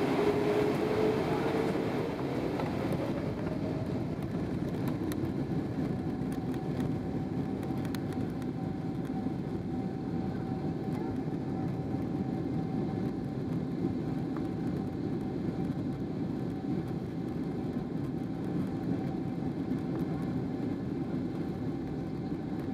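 Cabin noise of a Boeing 777-300ER taxiing, with its GE90 engines running in a steady rumble. An engine whine rises in pitch over the first couple of seconds, then holds at one steady tone.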